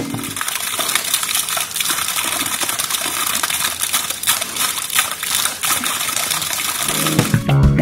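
A fountain's thin water jet splashing steadily into its round stone basin, an even hiss of fine splashes. Guitar-and-bass background music comes back near the end.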